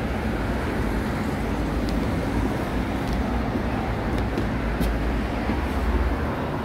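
Steady low rumbling street noise of the kind passing traffic makes, with a few faint clicks.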